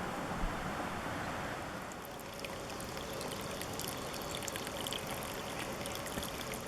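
A small stream running and trickling, with fine splashes becoming clearer about two seconds in.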